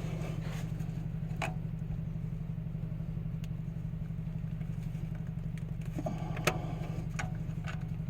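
Steady low pulsing hum, like an engine idling, with a few sharp metallic clicks and knocks scattered through it as a filter wrench works at a stuck spin-on oil filter.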